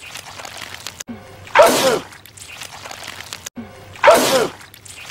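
A man's loud sneeze, the same sneeze looped and heard twice about two and a half seconds apart, each a short sharp burst with his voice falling through it.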